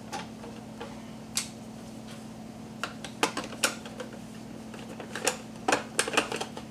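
Scattered clicks and knocks of plastic parts being fitted onto a Spinn coffee maker, some single and some in quick little clusters.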